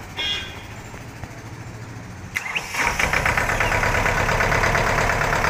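Mahindra Jivo 225 DI mini tractor's two-cylinder diesel engine cranking on its repaired starter motor and catching about two and a half seconds in, then running steadily with a fast, even beat.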